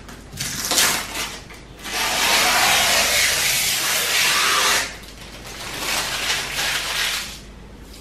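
Clear protective plastic film being peeled off a new fridge's clear plastic door bin. Short crackles come first, then a long, loud, even peeling hiss from about two seconds in to nearly five seconds, then softer crinkling of the loose film.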